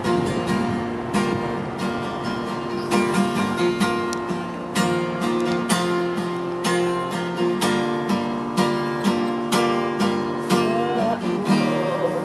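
Acoustic guitar music: chords strummed in a steady rhythm.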